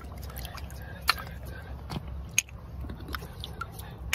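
Sea snail shells clicking and scraping against each other and the pebbles as they are picked by hand out of a shallow tide pool: a handful of scattered sharp clicks over a low steady rumble.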